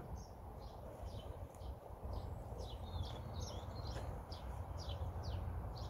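Small birds chirping, with short high notes repeated every fraction of a second, over a steady low outdoor rumble.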